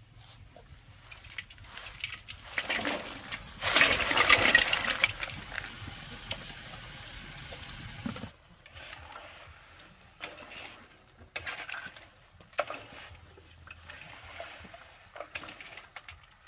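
Water pouring and splashing, building up, loudest about four seconds in, then stopping abruptly about eight seconds in. A few light knocks of kitchen things follow.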